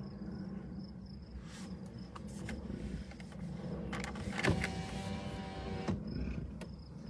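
A car's electric window motor whirring for about a second and a half, starting and stopping with a click, over a low steady rumble.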